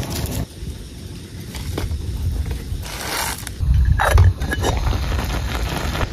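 Handling of metal camping cookware: scrapes and knocks of a pot and its lid, loudest about four seconds in, over a steady low rumble.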